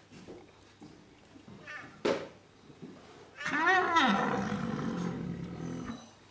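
Rhinoceroses vocalising in a standoff between a bull and a cow with her calf. A short sharp snort comes about two seconds in, then a loud drawn-out call that rises and falls in pitch, trailing off into a harsh growl that stops about six seconds in.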